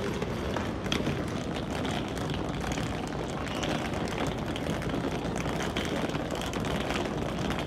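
Small wheels of two rolling suitcases rumbling steadily over stone paving, with light clicks scattered through the rumble.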